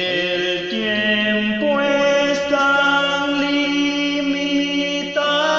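Evangelical praise song with long held notes over a steady sustained accompaniment. It slides up into the first note, then moves to new held notes about a second and a half in and again near the end.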